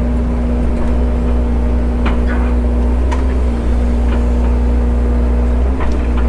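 Excavator diesel engine running steadily while digging, with a few light knocks of a little remaining rattle from the bucket and thumb linkage about two, three and six seconds in.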